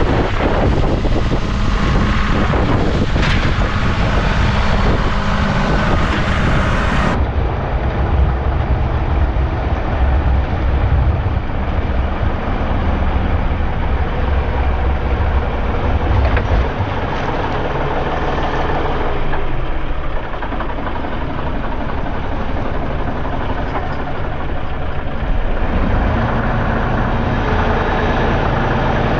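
John Deere compact tractor's diesel engine running steadily while plowing snow, with a low rumble throughout.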